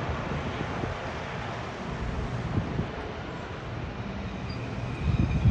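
Wind buffeting the microphone over a steady rushing noise, with a stronger gust about five seconds in.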